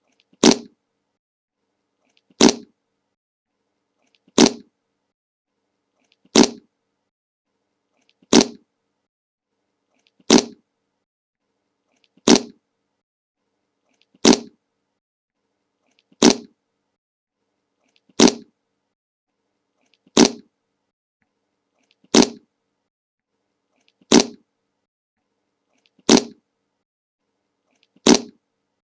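A short fart sound effect, the same clip repeated every two seconds, fifteen times over with silence between.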